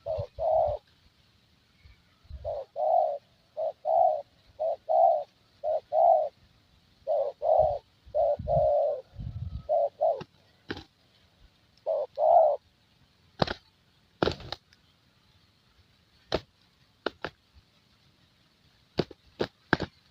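Spotted dove (terkukur) cooing: repeated phrases of short, low coo notes for about the first twelve seconds, followed by a few scattered sharp clicks.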